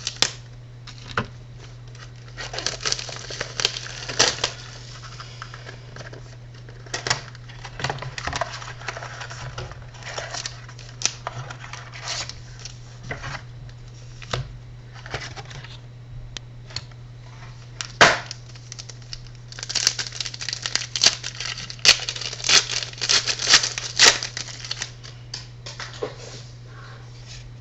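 Card packaging being torn open and crinkled by hand: irregular rustling and tearing with sharp clicks, in two busier stretches, one a few seconds in and one about two-thirds of the way through. A steady low electrical hum runs underneath.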